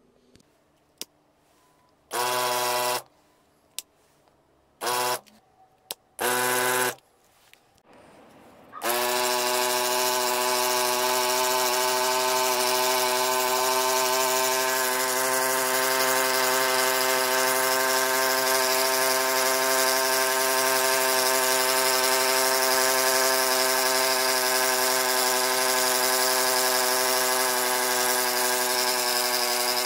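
Small battery-powered DC motor of a homemade pump switched on in three short bursts, then running continuously from about nine seconds in, coming up to speed in a moment and settling into a loud, steady pitched hum.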